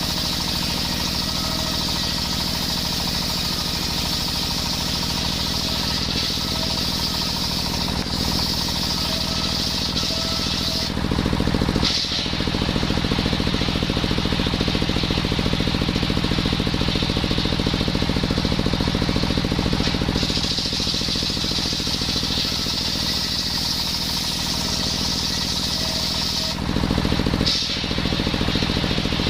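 Engine-driven circular saw running steadily while sawing coconut wood, with a high band of cutting noise over the engine note. That high band drops out about eleven seconds in and again near the end, and the engine gets louder at the same moments.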